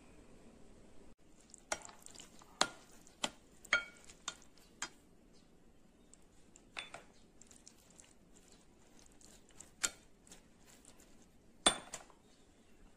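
Raw beef strips and sliced garlic being mixed in a glass bowl, with about ten sharp clinks against the glass scattered through, the loudest near the end.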